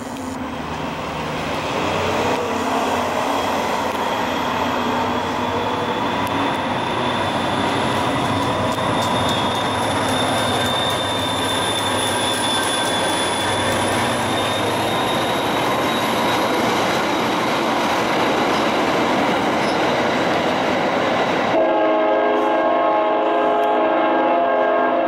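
CTrail diesel-hauled passenger train, an EMD GP40-3H locomotive with coaches, passing close by: a steady rumble of engine and wheels with a thin high whine over it. Near the end a train horn sounds, a chord of several steady tones held for the last few seconds.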